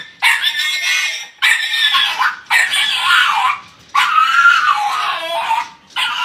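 A puppy crying in a string of loud, high-pitched wails, each about a second long with a wavering pitch, one after another with short breaks: the cry of a puppy left alone for a moment.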